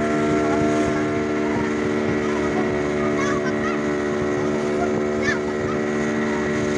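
Motorboat engine running steadily at an even pitch under way, with wind and water rushing past.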